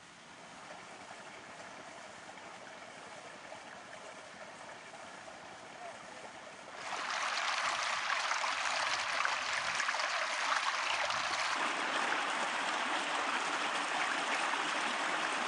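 Small stream running over stones: steady rushing water, fainter at first, that jumps much louder about seven seconds in and grows fuller and deeper a few seconds later.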